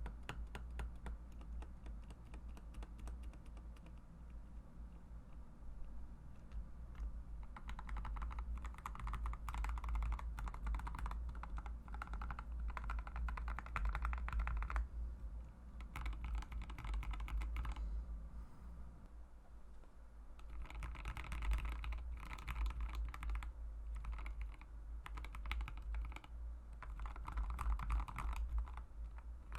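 Fast, continuous typing on a mechanical keyboard fitted with Mauve linear switches, a dense run of key clacks with brighter, busier stretches. A steady low hum lies underneath.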